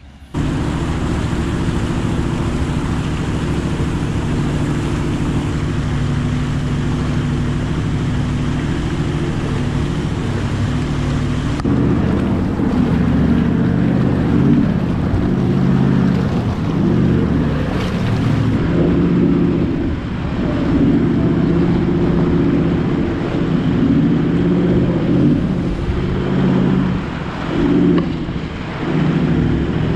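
Toyota LandCruiser 76 Series engine running while driving, its note rising and falling in the second half, with some wind on the microphone.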